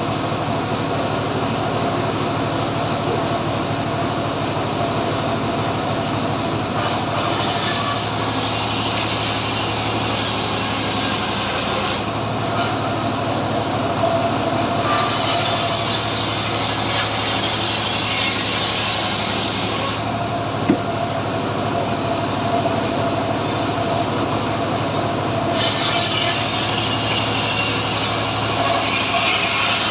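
Engine-driven homemade srekel saw running steadily while cutting teak, with three long stretches of harsher, hissier sound as the blade works through the wood.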